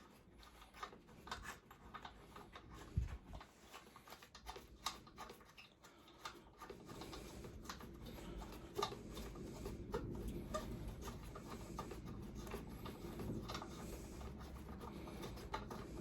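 Hand tools working bolts out of a pit bike frame: light scattered clicks and scraping of metal on metal. A steady low rumble comes in about seven seconds in.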